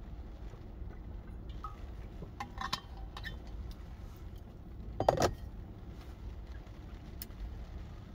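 Low steady rumble of a car cabin, with a few light clinks about two and a half seconds in and a short, louder handling noise about five seconds in.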